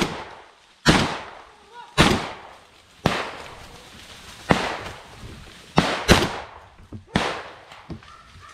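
A run of about eight shotgun shots, fired at irregular intervals of roughly a second, each sharp crack echoing off among the trees as it fades.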